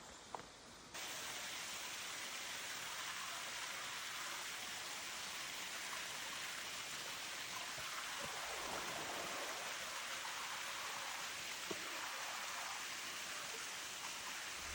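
Steady rushing of flowing water, cutting in about a second in after a few faint clicks.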